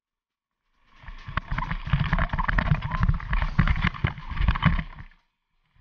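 Motorcycle going down on a rocky dirt track, heard through a helmet-camera microphone: a dense rumble of wind buffeting with many knocks and scrapes. It starts about a second in and stops about five seconds in.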